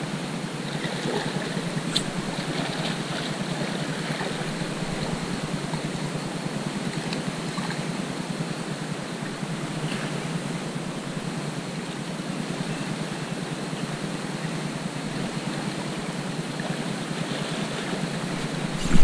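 Steady wash of calm sea water lapping against the rocks, with one small click about two seconds in.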